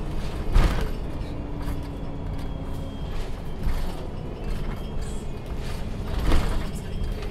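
Inside a MAN Lion's City G articulated city bus: body panels creaking and rattling over a steady low rumble, with two louder thumps, one shortly after the start and one near the end.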